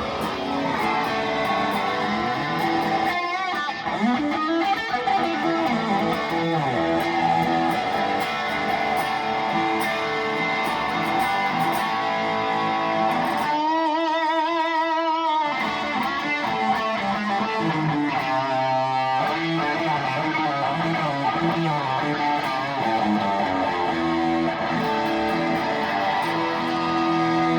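Electric guitar, a Gibson Les Paul Custom with Custombucker humbucking pickups, played through an amplifier: a run of single notes and chords, with a held note shaken by wide vibrato about halfway through.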